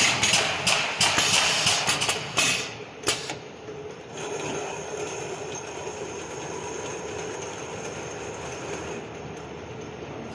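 Automatic can washing and gravity filling line running. About three seconds of loud, noisy bursts and clatter, a single sharp click, then a steady mechanical running noise with a faint constant tone.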